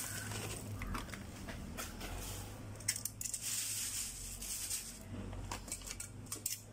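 Dry corn flakes poured from a plastic bag into a glass bowl, rustling and crackling with many scattered sharp clicks, over a low steady hum.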